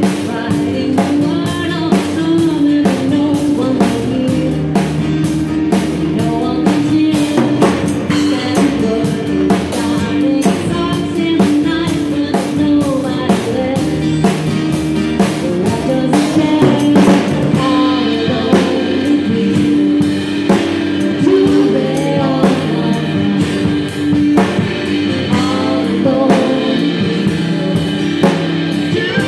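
A live band playing a song: a drum kit played with sticks close by, acoustic guitars and an upright bass, with singing over them.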